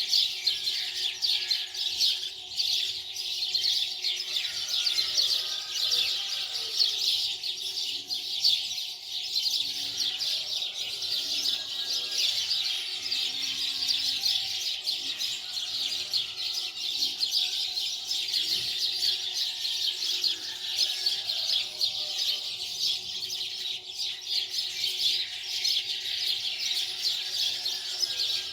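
Many small birds chirping together in a dense, continuous chatter.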